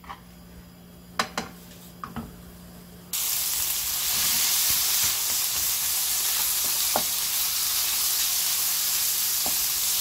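Ground pork in a lightly oiled frying pan: a few sharp knocks of a spoon against the pan, then about three seconds in a loud steady sizzle starts suddenly as the meat fries, with occasional light taps of a wooden spatula stirring it.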